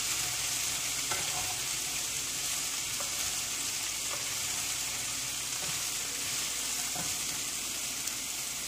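Shredded cabbage sizzling in hot oil in a nonstick pan on a low flame, a steady hiss, with a few faint scrapes and taps of a wooden spatula stirring it.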